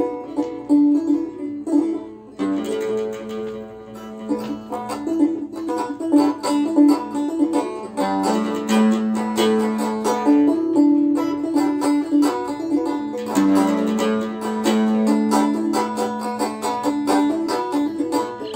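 Tanbour lyre and oud playing a Nubian tune together: quick plucked notes over long held low notes.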